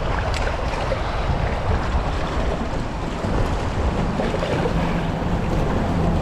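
Steady wind buffeting the microphone over the wash of waves on open water.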